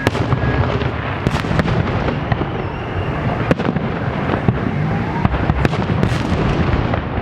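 Fireworks display: an irregular string of sharp shell bursts, several a second at times, over a continuous low rumble of more distant explosions.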